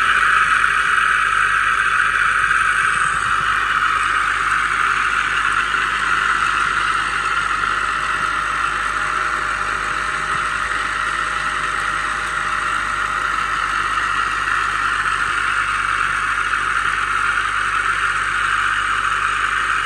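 The 2002 Mitsubishi Galant's 2.4-litre inline-four engine running steadily, heard up close at the front of the engine with the crankshaft pulley and accessory belt spinning.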